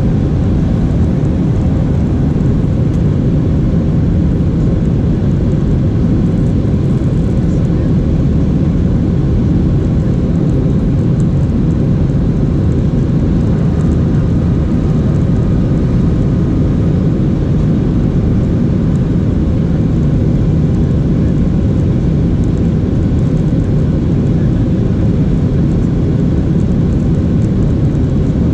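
Steady cabin noise of a Boeing 737-800 in flight, heard from a window seat over the wing: the CFM56-7B engines and the airflow past the fuselage make a loud, even, deep rumble with a faint steady hum in it.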